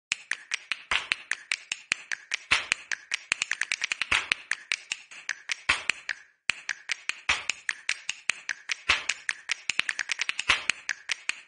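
A fast run of crisp snaps and clicks, several a second, with a heavier hit about every second and a half and a short break about six seconds in, like a percussion-only rhythm track.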